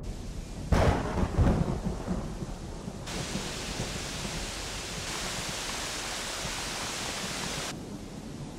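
Thunderstorm: a loud clap of thunder rumbles about a second in, then steady rain hisses from about three seconds in and stops suddenly near the end.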